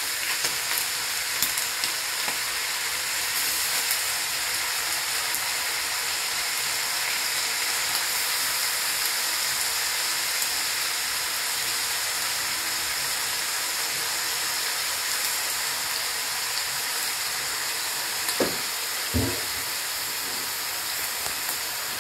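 Chicken gizzards and freshly added raw chicken livers sizzling steadily in a large aluminium wok. Two short knocks come near the end.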